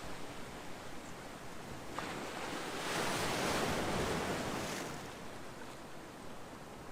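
Calm ocean waves on the shore: a steady surf hiss that swells as a wave breaks about three seconds in, then fades over the next two seconds.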